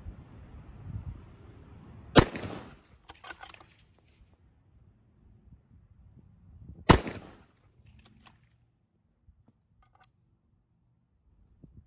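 Two shots from a 6mm Creedmoor precision rifle fitted with a muzzle brake, fired about five seconds apart, each followed a second or so later by a few short clicks.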